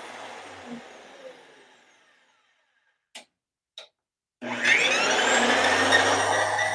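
VEVOR 13-inch benchtop thickness planer's motor and cutterhead spinning down after switch-off, fading out over about two seconds. Two clicks follow as the controls are worked. Then the motor starts again, rising in pitch as it spins up, and runs loud and steady with no wood in it, which shows a difference in RPM between its speed settings.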